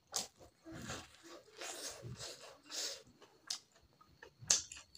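Close-up mouth sounds of a man eating pork curry with rice: irregular chewing and lip-smacking, with sharp clicks between the bursts and the loudest smack about four and a half seconds in.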